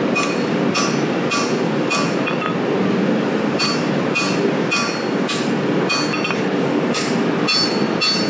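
Hand hammer striking a red-hot 1085 steel knife blade on an anvil, about two ringing blows a second with a short pause partway through. The blows thin the blade's edge. A steady low roar runs underneath.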